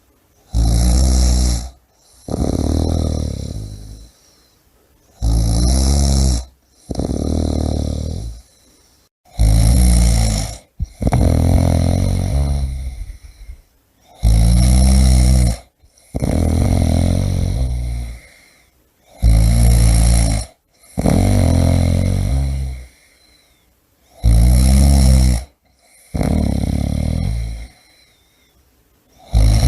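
A person snoring in a steady rhythm, about once every five seconds. Each breath is a short, loud snore followed by a longer snore that fades out.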